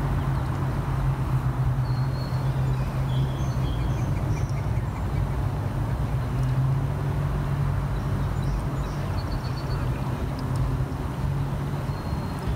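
A steady low engine hum, with a few faint high bird chirps a couple of seconds in and again past the middle.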